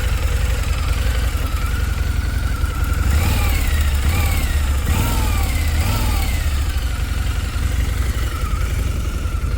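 2013 Harley-Davidson V-Rod Muscle's liquid-cooled Revolution V-twin idling steadily with a deep, even rumble. A few short rising-and-falling tones sound over it about three to six seconds in.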